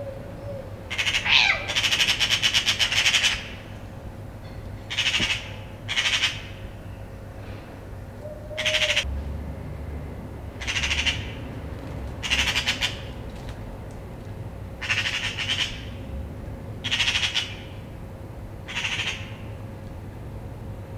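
Eurasian magpies giving their harsh rattling chatter in about nine loud bursts, the first and longest about a second in, the rest shorter and a second or two apart. This is the magpies' mobbing alarm, scolding a cat as a predator to drive it off.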